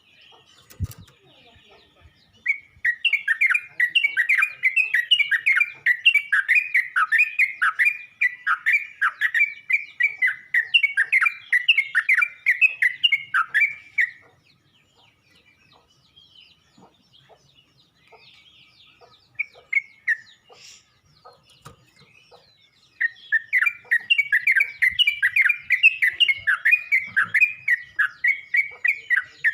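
Yellow-vented bulbul (trucuk) calling in a fast run of short, repeated chattering notes, several a second, for about twelve seconds. It then falls quiet for several seconds and starts the same run again near the end.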